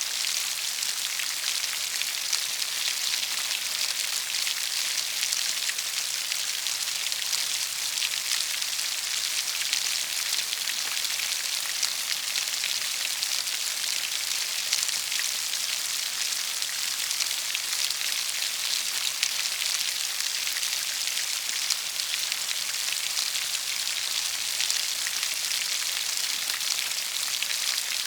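Steady rain falling: a dense, even hiss of many drops, with scattered sharper drop hits through it.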